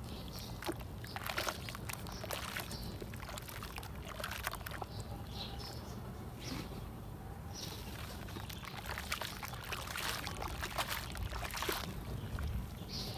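Chunks of red dirt and concrete crumbling and dropping into water, with irregular crackles, small knocks and splashes.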